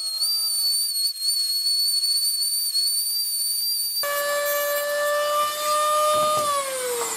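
Ryobi rotary tool with a small cut-off disc running at high speed against plastic, a steady high-pitched whine. About four seconds in the whine drops to a lower steady pitch, and near the end it falls steadily in pitch as the tool spins down.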